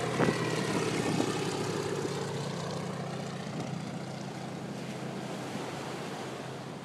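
Propeller engine of a World War II fighter plane droning as it flies away, growing steadily fainter, its pitch sliding slightly lower at first.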